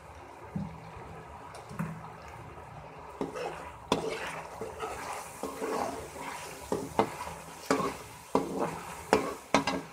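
Slotted spoon stirring chicken frying in oil in a wok, scraping and clattering against the pan over a faint sizzle. The strokes start about three seconds in and come more often toward the end.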